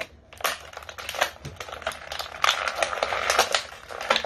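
Action-figure packaging being opened and handled: a quick, irregular run of plastic clicks, rattles and crinkles.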